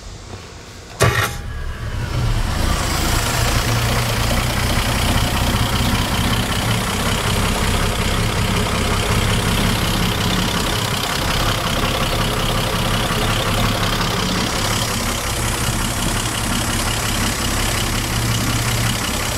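Gray Marine 140 flathead six-cylinder marine engine started with the key. It catches at once about a second in, then idles steadily.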